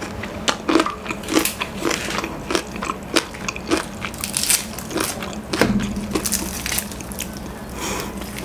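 Close-miked crunching and chewing of crispy fried chicken breading, with many sharp crackles. Later, the breading crackles as a fried chicken piece is pulled apart by hand.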